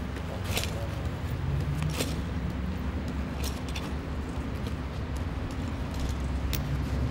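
A truck engine idling steadily with a low hum, and several short, sharp metallic clinks from a lineman's climbing gear and tool belt as he climbs a wooden utility pole.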